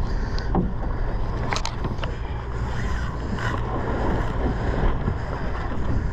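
Wind buffeting the microphone over a boat's low, steady rumble and the sea, with a couple of sharp clicks about a second and a half in.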